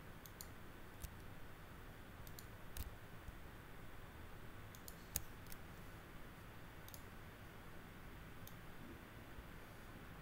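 Computer mouse clicks, short and sharp, coming irregularly over faint room tone and thinning out over the last few seconds.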